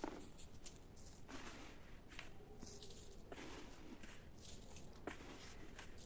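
Faint, scattered crunching and scraping with a few light knocks as sand is scooped and handled.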